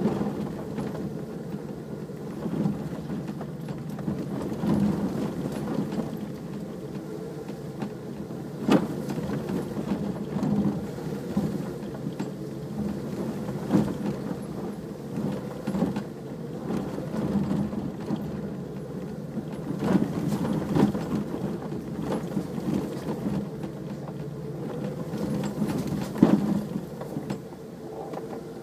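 Four-wheel-drive vehicle's engine running at low speed over a rough off-road track. Several sharp knocks and thuds from the body and suspension are scattered through it as it goes over bumps.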